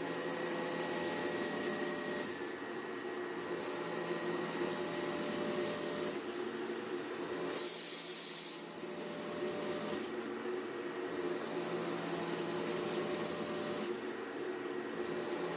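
Klingelnberg C29 bevel gear cutting machine dry-cutting a spiral bevel gear: a steady machine hum and whine under a hissing cutting noise that swells and fades roughly every four seconds.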